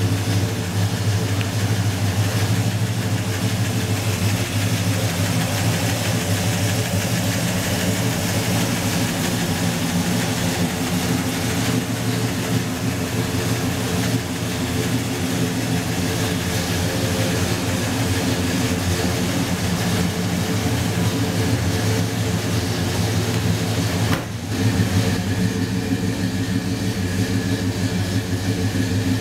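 1964 Pontiac GTO's 389 V8 idling steadily, with a short break in the sound about three quarters of the way through.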